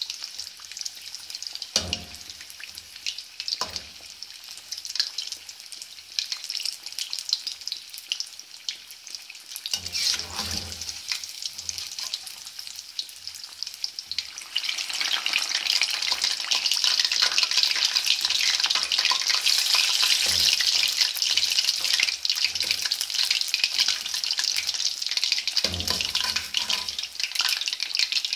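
Battered fish pieces deep-frying in hot oil, a steady sizzling crackle that grows louder about halfway through. A few low knocks come from the slotted steel spoon turning the pieces in the pan.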